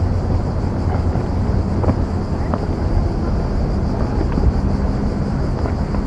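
A steady low outdoor rumble with a faint hum under it, and a few short faint chirps here and there.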